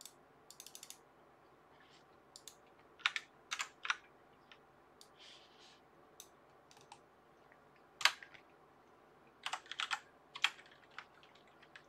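Computer keyboard being typed on: quiet key clicks in short, irregular runs with gaps between, the sharpest single keystroke about eight seconds in.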